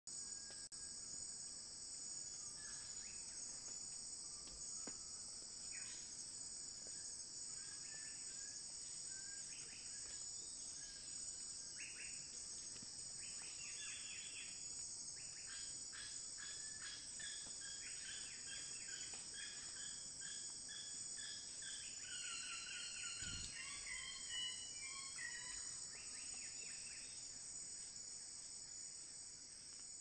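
Steady high-pitched insect chorus, with faint bird calls in quick series of short notes, more of them in the second half.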